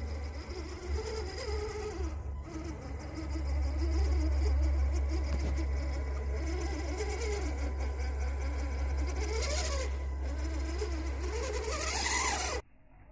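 Redcat Gen7 RC crawler's electric motor and drivetrain whining as it crawls over rocks and boards, the pitch rising and falling with the throttle. It revs up twice near the end, then the sound cuts off suddenly.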